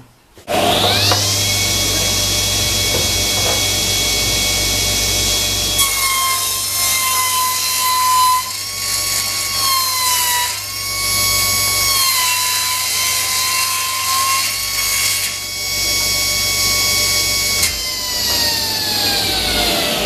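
Table saw starting up with a rising whine and settling to a steady running pitch, then ripping a rock maple board lengthwise from about six seconds in, the pitch dipping and wavering as the blade takes the load. Near the end the saw is switched off and winds down with a falling whine.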